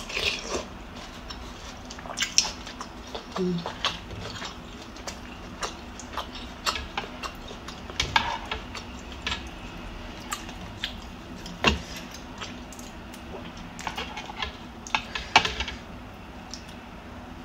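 Close-up mukbang eating sounds: a metal spoon clicking and scraping against a ceramic bowl of pho, with slurps of broth and mouth sounds. The clicks are short, sharp and irregular, scattered all through.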